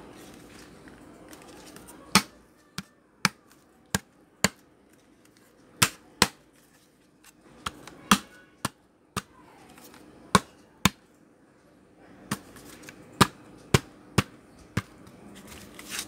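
A plastic portable speaker's case being pressed and snapped back together and handled: a string of sharp plastic clicks and knocks, about twenty at uneven intervals, with short pauses in between.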